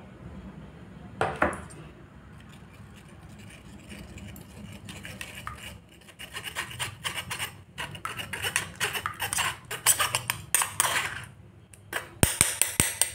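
A spoon scraping and pressing ripe palm-fruit pulp against a mesh strainer over a glass bowl, in quick repeated strokes that grow louder and busier in the second half. This strains the palm juice and leaves the stringy fibres behind in the mesh.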